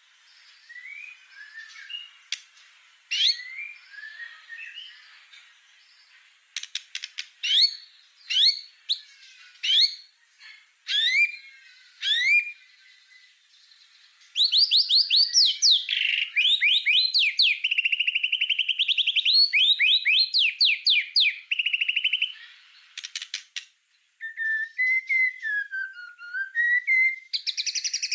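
White-rumped shama (murai batu) singing a varied song of sharp, rising whistled notes. About halfway through it breaks into a loud, fast run of rapid notes lasting several seconds, the 'shots' (tembakan) that shama keepers prize. Near the end come wavering whistles.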